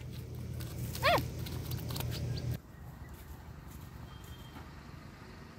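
A short, high animal cry about a second in, rising then falling in pitch, over a steady low hum that cuts off about two and a half seconds in.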